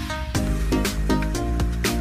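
Background music: an upbeat tune of short, sharply struck notes over a steady beat and bass.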